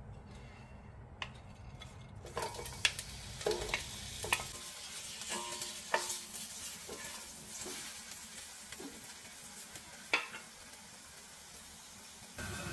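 Sliced onions sizzling in oil in a stainless steel pot, starting about two seconds in, with a few sharp knocks of a wooden spatula against the pot as they are stirred.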